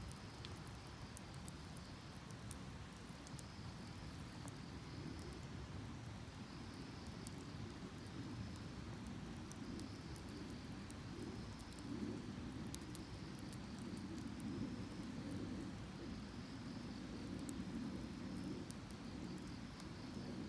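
Steady rush of a flowing river, with insects chirping in short repeated phrases and a wood fire in a metal drum crackling with scattered sharp pops.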